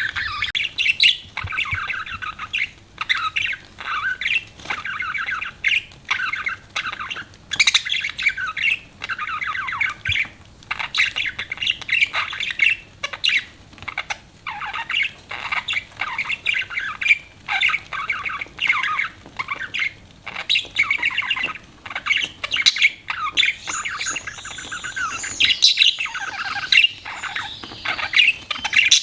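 Budgerigars chirping and warbling in a continuous, busy chatter, with short sharp calls mixed in.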